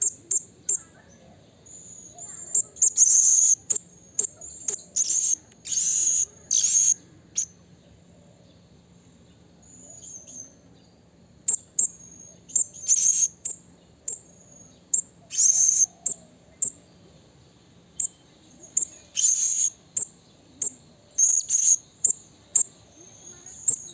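Blue-crowned hanging parrot (serindit) calling: rapid series of short, very high-pitched chirps with several longer, harsher screechy notes mixed in, and a pause of a few seconds near the middle.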